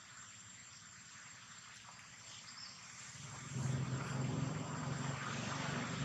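Faint outdoor background, then about three and a half seconds in a motor engine's low, steady hum comes in and holds.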